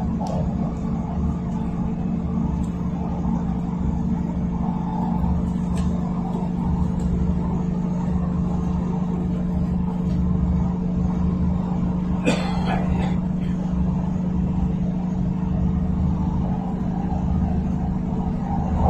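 Steady running noise inside a moving train carriage: a low rumble with a constant hum. About twelve seconds in there is one short, sharp burst of sound.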